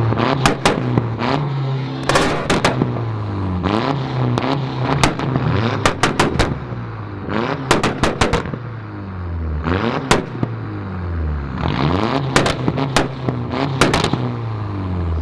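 Tuned car's engine revved repeatedly against a two-step launch rev limiter, each rev ending in a rapid burst of loud exhaust pops and bangs, with flames shooting from the tailpipe. About eight such rev-and-pop bursts come one or two seconds apart.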